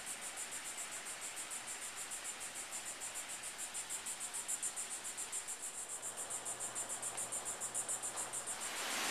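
Insects calling in the trees: a steady, high-pitched pulsing chorus at about five pulses a second, over a faint outdoor hiss.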